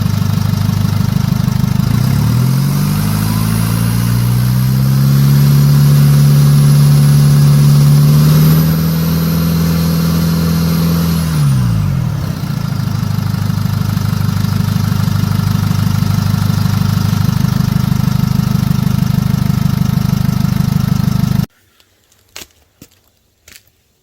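2010 Jeep Wrangler JK's common-rail diesel engine running after repair of its injectors and fuel line. It idles, then revs up about two seconds in and holds there with a faint high whine. It settles back to idle about twelve seconds in, and the sound cuts off suddenly near the end.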